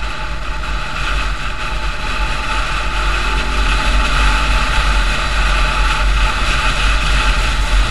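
A road vehicle driving along at speed: steady engine and road noise with a deep low rumble, growing gradually louder.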